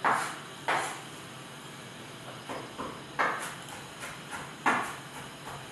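Knife cutting an onion on a cutting board: several separate knocks of the blade on the board, spaced irregularly.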